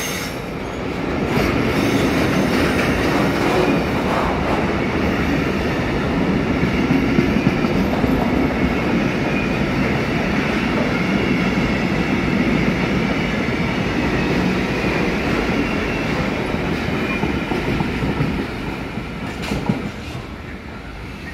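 A long freight train of covered goods wagons rolls past, its steel wheels running on the rails with a steady rumble. The noise falls away near the end as the last wagon passes and draws off.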